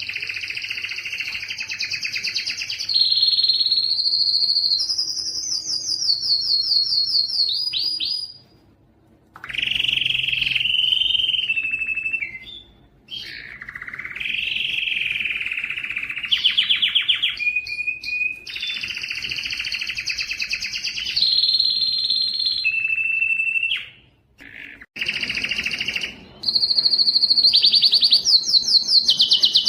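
Domestic canary singing a long song of rapid trilled rolls, each a fast run of repeated notes held at one pitch before jumping to another, high and piercing. It breaks off briefly about a third of the way in and again near the end.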